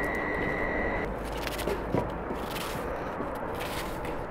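Onion being sliced by hand with a kitchen knife, a few soft cuts and scrapes over steady outdoor background noise. A steady high-pitched tone stops abruptly about a second in.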